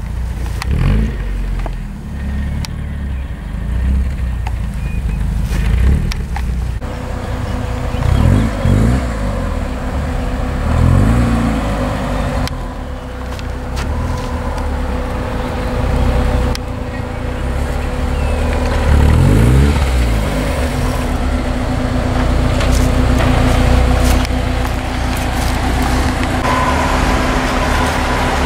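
Porsche 944 four-cylinder engines driving at low speed, a steady engine drone with the revs rising and falling several times as the cars pull away and move along.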